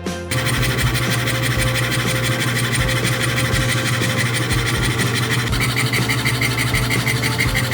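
An electric woodworking power tool starts abruptly and runs steadily with a low hum and a broad grinding noise. From about two-thirds of the way in, a pulsing higher whine joins it.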